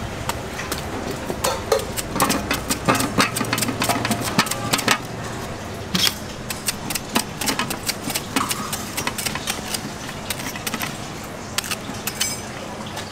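Large kitchen knife peeling and slicing a firm green fruit by hand: an irregular run of crisp scraping cuts and sharp clicks from the blade. A low background rumble under the first few seconds fades out.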